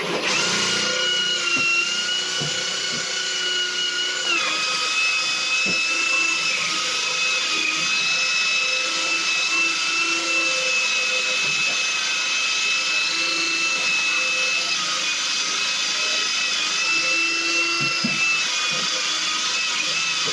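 Electric drill running steadily with a diamond-tipped bit grinding a hole through ceramic tile: a steady motor whine over a gritty grinding noise, the whine dropping slightly in pitch about four seconds in.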